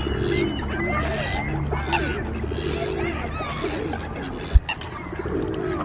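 A mixed flock of ducks, geese and gulls calling over one another, with many short overlapping calls, some low and some high and gliding. A single sharp knock sounds a little past the middle.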